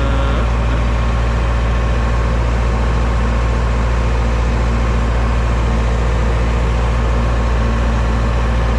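Steady low drone of a truck running, engine hum with road noise, unchanging throughout.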